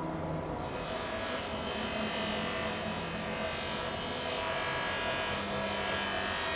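Steady electrical buzzing hum, with a brighter hiss joining under a second in.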